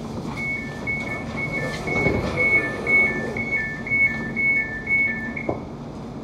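Two-tone door warning beeps on a London Overground Class 710 electric train, standing at its terminus with the doors being released. A higher and a lower beep alternate about twice a second for about five seconds, over the carriage's steady hum, with a single knock as the beeping stops.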